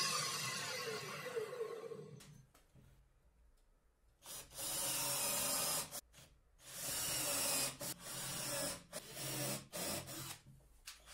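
The circular saw under a homemade table saw winds down, its pitch falling and fading out about two seconds in. Then a cordless drill drives screws into pine boards in about five short bursts.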